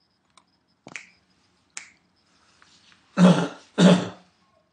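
A person clearing the throat twice in quick succession: two short, harsh bursts with a low voiced hum, about three seconds in, after a few faint clicks.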